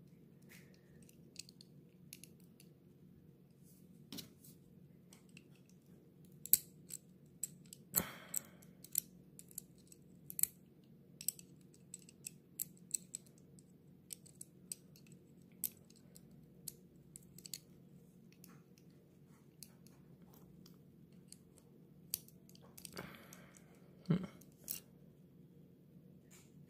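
Scattered light clicks and taps of small die-cast and plastic model car parts being handled and pressed together while fitting the engine, over a steady low hum.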